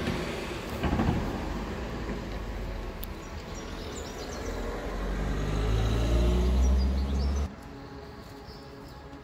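Tram running, a low rumble with a low motor hum that grows louder through the middle, then cuts off suddenly to quieter street noise near the end.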